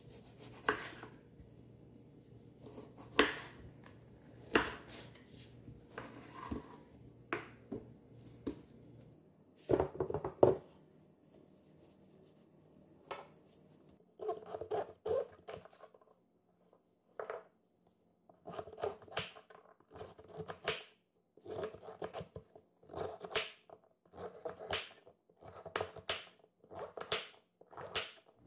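Kitchen knife cutting on a bamboo cutting board. First come scattered sharp taps as grapefruit is sliced, then a steady run of chops, about one a second, as carrots are cut into rounds.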